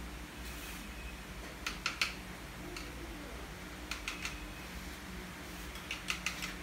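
Paintbrush tapped against the rim of the paint pots and water bucket: three short groups of quick clicks, three or four taps each, over a steady low hum.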